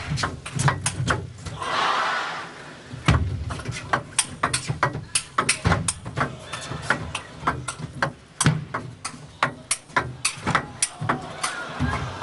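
Table tennis rally: the celluloid ball clicks sharply off rubber bats and the table, two to three strikes a second, mixed with a few low thuds.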